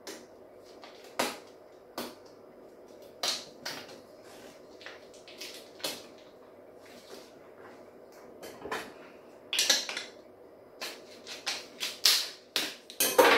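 Bamboo lid and glass storage jar being handled: a scattering of light knocks and clicks, with a brief rustle about ten seconds in and again near the end.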